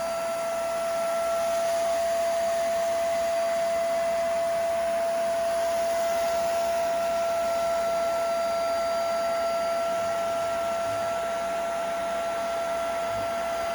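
Hoover Spotless portable carpet and upholstery spot cleaner running steadily, its motor giving a constant whine over a rushing hiss of suction.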